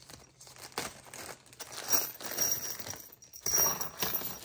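Plastic hardware bag crinkling and rustling in the hands as it is torn open, in irregular bursts, loudest about two seconds and three and a half seconds in.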